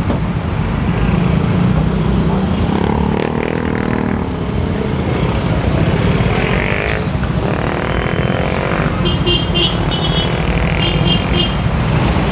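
Street traffic heard while riding a bicycle among it: motorcycle and car engines passing close by, over a steady low rumble of wind on the microphone. A rapid high-pitched beeping sounds twice near the end.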